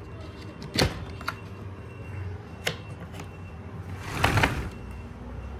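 Wooden clicks and knocks from hands handling an open harmonium case: three sharp clicks in the first three seconds, then a louder scraping rattle about four seconds in. No notes are played.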